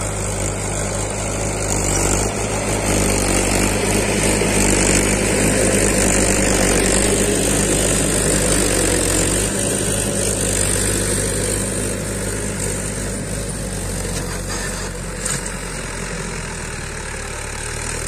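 Swaraj 843 XM tractor's three-cylinder diesel engine running steadily under load while pulling a tine cultivator through the soil.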